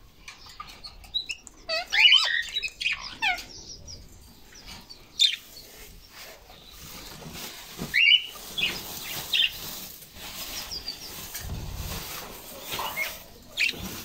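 Budgerigars chirping: a quick burst of rising and falling chirps about two seconds in, then scattered single calls.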